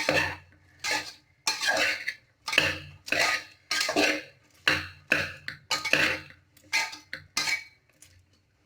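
A utensil scraping and knocking around the inside of a metal pressure cooker in quick strokes, about two a second, while caramel-coated popcorn is stirred fast. The strokes stop near the end.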